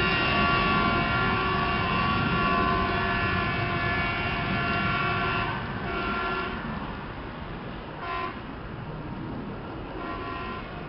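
Horn of a Plasser track-recording vehicle sounding a salute as it pulls away: one long multi-tone blast of about five seconds, then a few short toots. Under it is the low rumble of the vehicle's engine.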